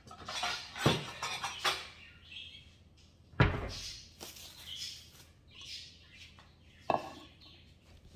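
Ceramic plates being handled and set down on a kitchen counter: a few sudden knocks and clatters, the loudest about three and a half seconds in, with faint high squeaks between them.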